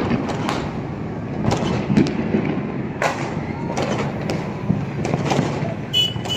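Fireworks and firecrackers going off all over a city at once: a dozen or more irregular bangs and pops, near and far, over a steady low din.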